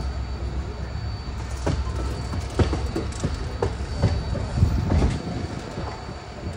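Passenger train pulling out of a station: a steady low rumble of the moving train with irregular clanks and knocks from the wheels and couplings, and a faint high whine that comes and goes.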